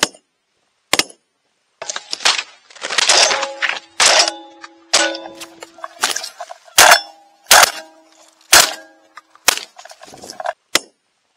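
Two shotgun shots about a second apart, then a long irregular run of loud knocks and clattering with a metallic ring, the loudest strikes coming in the second half.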